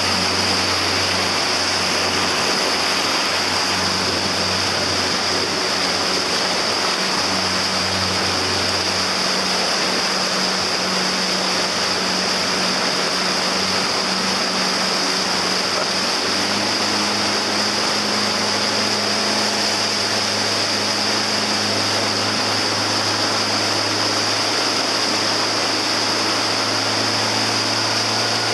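Motorboat engine running steadily under the rushing, churning water of its wake. The engine hum shifts slightly in pitch about halfway through.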